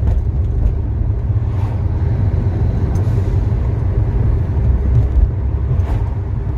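Fiat Coupé 20v Turbo's turbocharged five-cylinder engine and exhaust under way, a deep, steady, loud rumble heard from inside the cabin, like a big monster truck.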